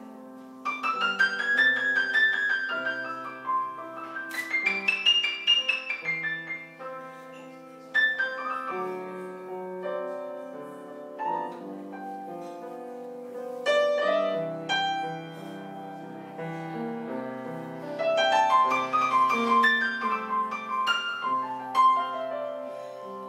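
Background piano music recorded live, with sweeping runs of notes that rise and fall, a few near the start and again near the end.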